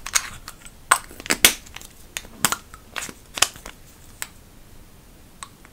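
Plastic lipstick tubes and caps being uncapped and handled: a quick run of sharp clicks and taps over the first four seconds or so, then only a couple of faint ticks.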